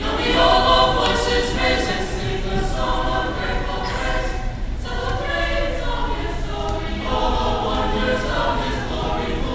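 Mixed school choir singing together, many voices holding sustained chords, with a short break between phrases about four seconds in.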